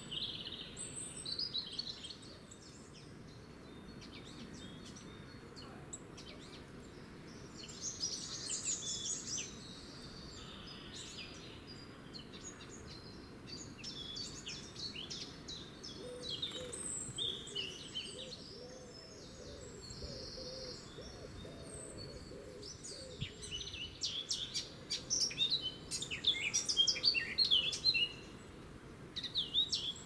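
Small songbirds singing and calling in short bursts of quick, high, varied notes over a faint steady background hiss. The loudest is a fast run of notes near the end.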